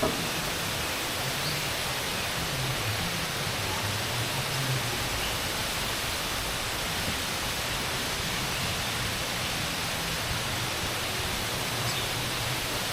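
Steady, even rushing noise with a few faint, brief high bird chirps.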